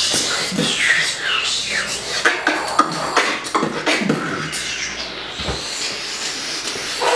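Two beatboxers jamming a trap beatbox pattern with their mouths: sharp mouth-drum hits and low kick-like thumps, with short gliding pitched sounds in the first couple of seconds.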